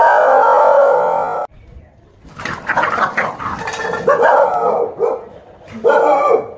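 A dog barking at a stuffed toy tiger, a run of short sharp barks in the middle with another burst near the end, alarmed at what it takes for a real tiger. Before that, a loud sustained pitched sound cuts off abruptly about a second and a half in.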